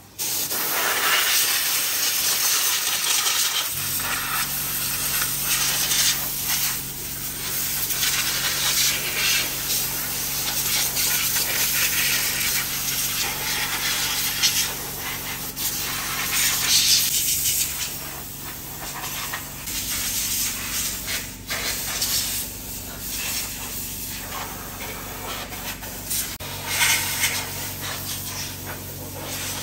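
Compressed air hissing from an air-hose nozzle in uneven blasts. The hiss starts sharply, and about four seconds in the steady hum of an air compressor's motor joins it.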